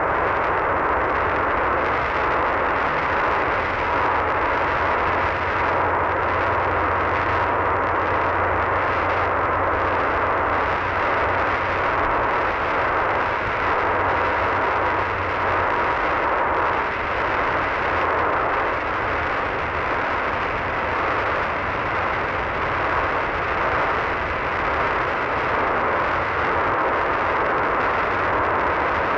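Radio static from a receiver tuned to a weak, distant station: a steady hiss with a faint steady whistle underneath through about the first half.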